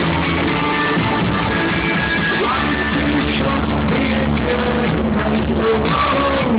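Rock band playing live over a festival sound system, with singing and guitar.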